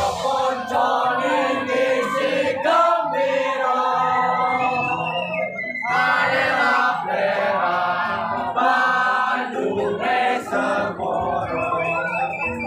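A group of voices singing together in a traditional performance song, with a high held note sounding briefly in the middle and again near the end.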